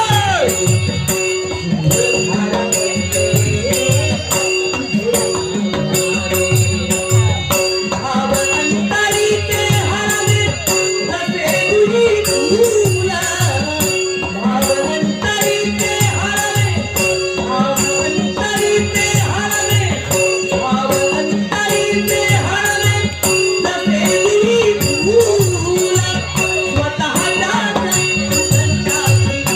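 Folk song: a singing voice over a held steady tone, with regular drum beats and jingling rattles keeping the rhythm.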